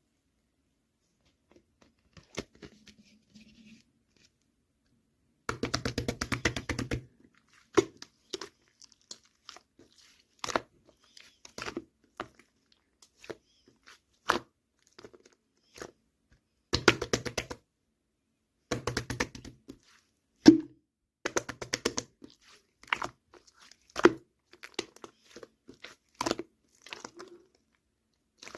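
Slime being squished and pressed by hand, giving bursts of rapid crackling clicks about a second long, with single sharp pops and squelches between them.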